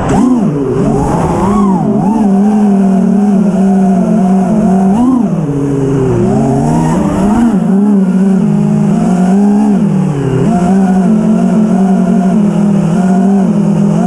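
Four brushless motors of a 6S FPV freestyle quadcopter (iFlight Xing-E 2207 1800kv with 5-inch props) whining, their pitch constantly swooping up and down with throttle. The sound is heard close up from the camera mounted on the quad. There are sharp throttle punches about a second in and again about five seconds in, and a throttle-down dip past the ten-second mark.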